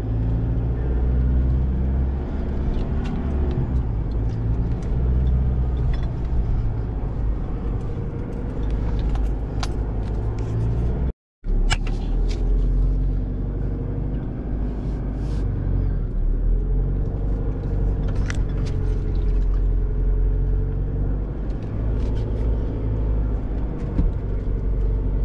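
Four-wheel-drive vehicle driving over a soft sand track, heard from inside the cabin: a steady low engine and tyre rumble, with the engine pitch rising and falling and scattered clicks and knocks over the bumps. The sound cuts out completely for a moment about halfway through.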